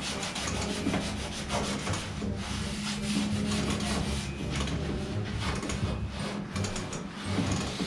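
Sanding on the sheet-steel body of a 1969 Dodge Charger: a continuous rasping scrape that goes on without a break.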